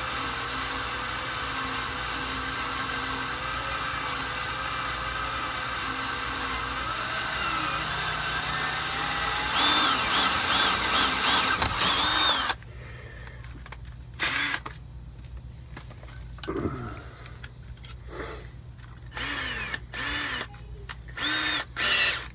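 Cordless drill boring a pilot hole through a steel vehicle frame with a twist bit: a steady motor whine with the bit cutting, rising in speed about seven seconds in and screeching louder near the breakthrough at the back side of the metal, then stopping about twelve and a half seconds in. Several short bursts of sound follow in the second half.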